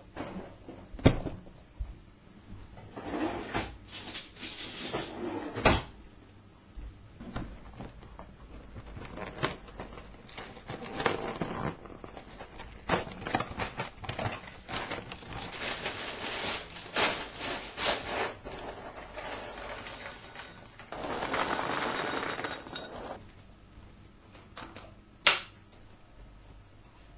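Breakfast things being handled on a table: irregular knocks, clinks and scrapes of a ceramic bowl, cereal box and plastic milk bottle, with about two seconds of dry cereal rings rattling into the ceramic bowl a few seconds before the end.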